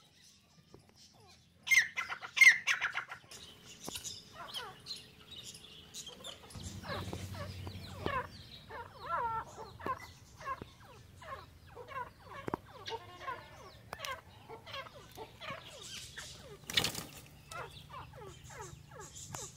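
Backyard fowl calling: a loud run of sharp calls about two seconds in, then many short chirps and clucks repeating through the rest. A single sharp knock comes near the end.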